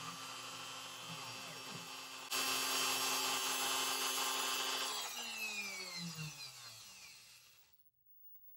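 CNC router spindle running with a steady whine that gets louder about two seconds in. It then spins down from about five seconds in, its pitch falling as it fades out.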